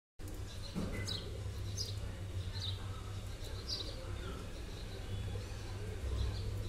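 Birds chirping: short high calls about once a second, over a steady low rumble.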